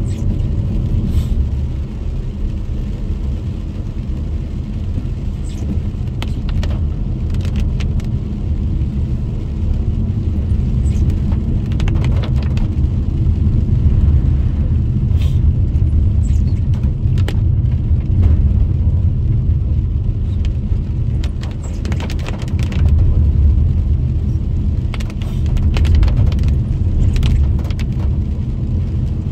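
Car cabin noise while driving on a wet road: a steady low rumble of engine and tyres, with scattered light ticks and taps from rain on the windscreen.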